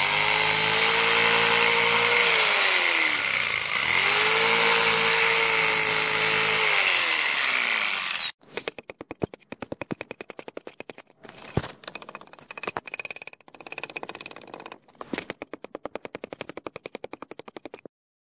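Power tool cutting into an aerated concrete (Hebel) block, its motor pitch sagging under load twice before winding down and stopping about eight seconds in. It is followed by bursts of rapid, evenly spaced clicking and tapping.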